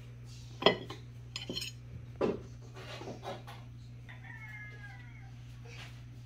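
Metal cookie scoop and offset spatula clinking against a baking sheet, three sharp clinks in the first few seconds, the first the loudest, then lighter knocks. About four seconds in comes a short, high, wavering tone lasting under a second.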